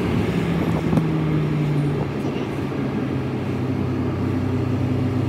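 A car driving, heard from inside the cabin: a steady engine hum over road noise, the hum settling slightly lower in pitch about two seconds in.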